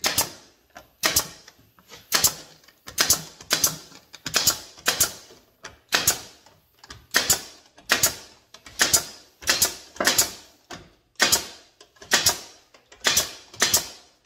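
A pneumatic air nailer shooting nails into cedar fence pickets: a steady run of sharp shots, roughly one to two a second, some in quick pairs.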